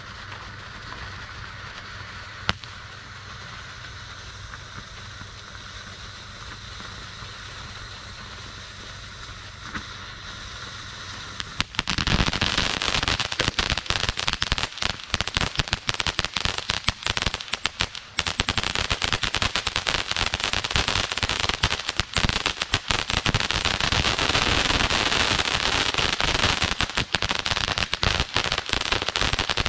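Accessorize, an RGS consumer firework fountain, spraying sparks with a steady hiss. About twelve seconds in it breaks into loud, dense crackling that keeps going.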